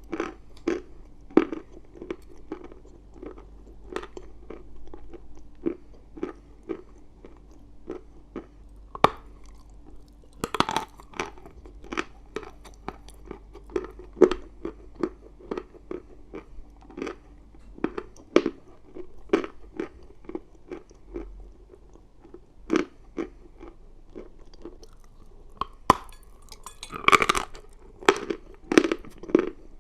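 Chalk being chewed close to the microphone: a steady run of sharp crunches, about one or two a second, with a louder, quicker flurry of crunches near the end.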